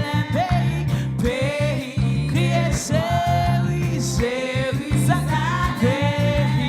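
Live gospel praise music: a worship band with bass, guitar and a steady beat, and a voice singing the melody.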